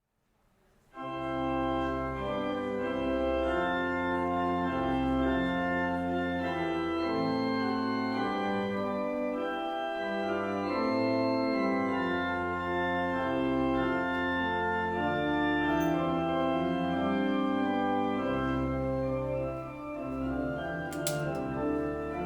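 Organ playing slow, sustained chords, starting about a second in.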